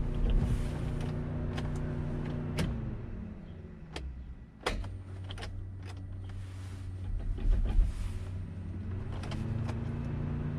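Swapped VQ37VHR V6 running in a Nissan 350Z with the hum of an electric motor that winds down about three seconds in. A few sharp clicks follow and a lower steady hum carries on, then the motor winds back up near the end. This fits the cooling fans losing power as their fuse pops.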